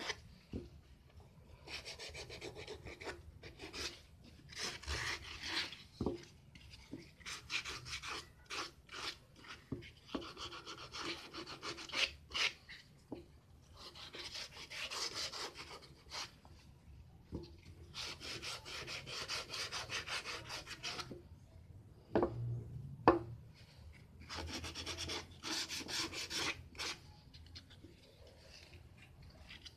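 A plywood piston pattern being hand-sanded: sandpaper rasping against the wood in strokes, in spells of a few seconds with short pauses. Two sharp knocks come close together about three-quarters of the way through.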